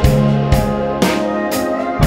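Background music with a steady beat, about two beats a second, over held instrumental tones.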